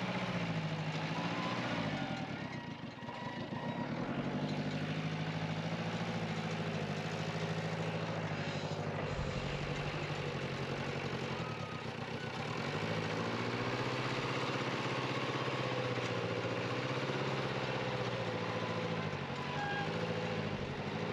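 Backhoe's diesel engine running as it works, its pitch sagging and picking back up several times as the load on it changes.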